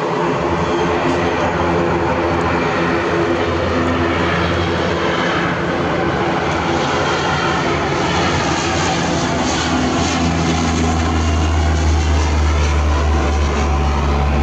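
Aero Commander twin-engine propeller plane's engines running at high power for its takeoff: a steady pitched engine sound that grows louder over the last few seconds.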